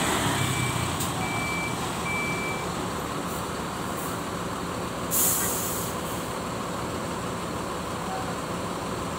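Bus engines running low and steady while a reversing beeper repeats a short high beep about every two-thirds of a second for the first couple of seconds. About five seconds in, a loud short hiss of air, as from a bus's air brakes.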